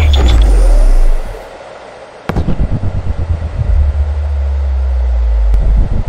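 Deep synthesized sound effects: a falling bass sweep that settles into a low hum and fades after about a second, then a sharp hit a couple of seconds in, followed by a deep rumble that pulses rapidly.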